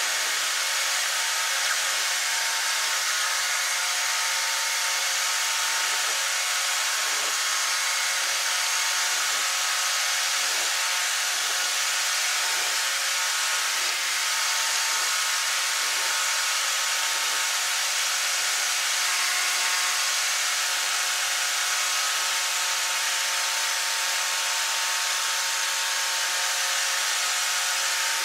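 Aviat Husky tow plane's engine and propeller at full climb power while towing a glider, a steady drone with a few even tones over a loud hiss of rushing air, heard from inside a cockpit.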